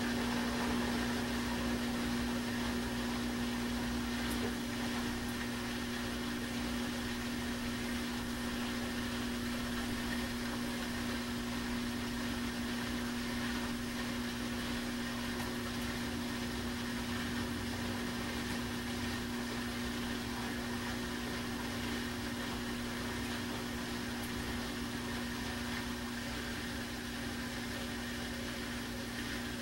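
Samsung WD136 direct-drive front-load washer-dryer running near the end of its wash cycle: a steady hum with one constant low tone, easing slightly in level.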